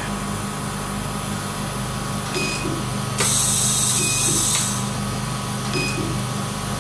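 Steady hum of a surgical laser unit and smoke evacuator. About three seconds in, a hiss of about a second and a half as the laser cuts into the dog's nostril to widen it and the smoke is drawn off; two short beeps, one before it and one after.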